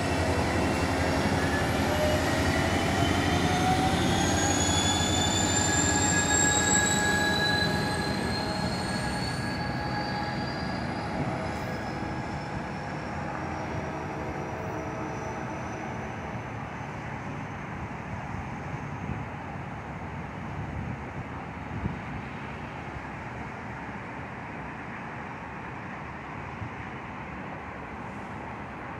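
Amtrak Pacific Surfliner train led by a Siemens locomotive rumbling along the track, with a whine that climbs in pitch over the first several seconds. The sound then fades steadily as the train moves off into the distance.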